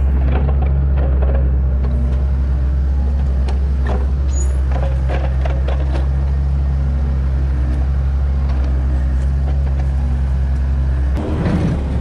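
Heavy-equipment engine running steadily at a constant speed, with a few sharp clanks and knocks about four to five seconds in, then a change in the engine sound near the end.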